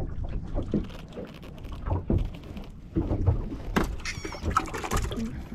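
A freshly caught yellowtail scad being handled and unhooked, with knocks and rustling. About four seconds in there is a brief wavering high squeak, which the angler calls the fish crying.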